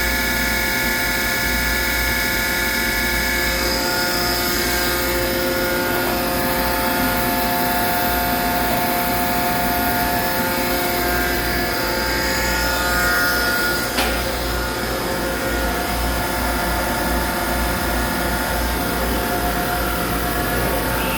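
CNC turning machine running steadily, a mix of motor and spindle whine with several steady tones over a low hum, and a single sharp click about fourteen seconds in.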